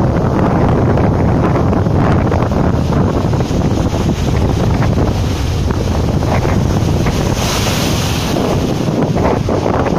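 Rough storm surf crashing and washing against a rock seawall, with strong wind buffeting the microphone. A brief burst of louder hiss comes late on as a wave breaks into spray.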